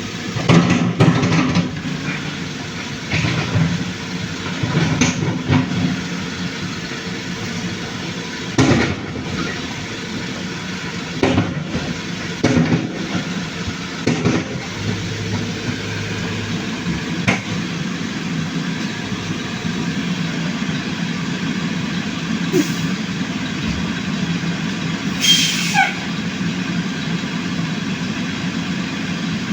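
Engine of a motorised oil palm fruit hauler running steadily, with irregular knocks and clunks every few seconds.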